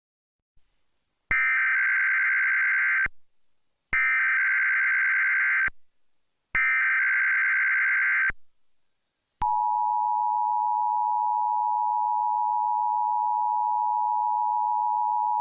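Emergency Alert System test signal: three bursts of digital data tones (the SAME header), each about two seconds long with short gaps. After the third burst the steady two-tone attention signal (853 and 960 Hz) starts and holds.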